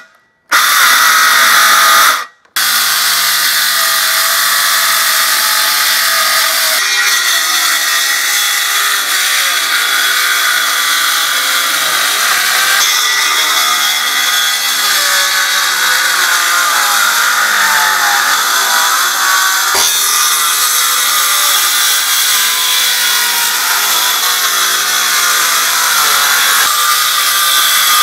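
Cordless circular saw running and cutting through a timber board, its motor whine shifting in pitch as the blade loads in the wood. The sound drops out twice, very briefly, in the first few seconds.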